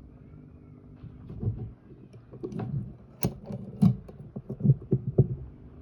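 Irregular clicks and low knocks of work on lithium battery cells, with two sharp snaps about three and a half seconds in and just under a second apart, typical of a battery spot welder firing onto the nickel strip.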